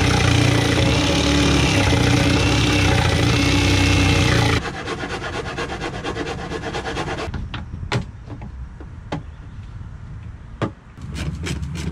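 A jigsaw cuts through the boat's fibreglass console for about four and a half seconds, enlarging a switch-panel opening. It stops abruptly, then a hand file rasps back and forth along the cut edge, and a few sharp clicks and knocks follow as the panel is test-fitted.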